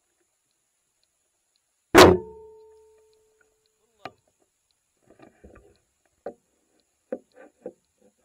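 A single sharp knock about two seconds in, with a short ringing tone that dies away within a second, followed by a few faint scattered clicks and taps.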